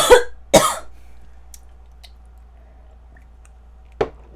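A woman coughing twice, hard, about half a second apart, then a single short sound near the end.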